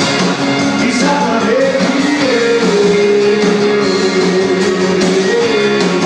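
A live dub-reggae band playing with electric guitar, bass, drums and vocals through the venue PA during a sound check. About halfway through, a long note is held almost to the end.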